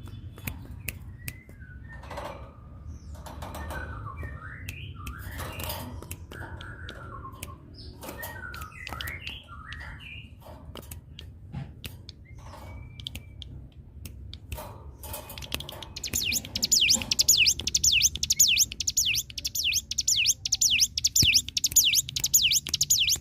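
A ciblek gunung (cigun) singing. Scattered chirps and short calls with sharp clicks give way, about two-thirds of the way in, to a loud, fast run of repeated down-sweeping notes, about four a second, held for some seven seconds: the continuous 'ngebren' song.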